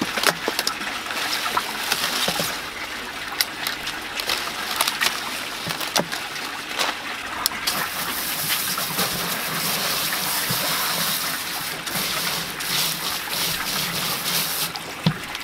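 Water spraying from a garden hose nozzle and splashing over a cauliflower head on a plastic bucket lid, a steady hiss that is strongest in the second half and cuts off shortly before the end. In the first few seconds, crisp snaps and rustles as the leaves are pulled off the head.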